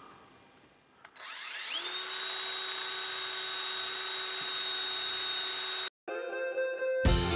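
DeWalt cordless drill/driver drilling into a small wooden support strip held against the wall: the motor spins up with a rising whine about a second in, runs at a steady pitch, and cuts off abruptly. Background music starts near the end.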